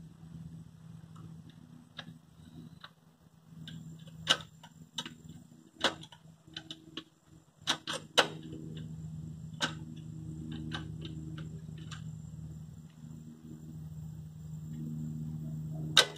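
Motorcycle roller drive chain clinking against the front sprocket and its metal surroundings as it is handled and fed on: scattered sharp metallic clicks, the loudest about four, six and sixteen seconds in. A steady low hum runs underneath.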